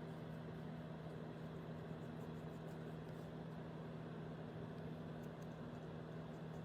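A steady low machine hum over a constant hiss, with a few faint light ticks now and then.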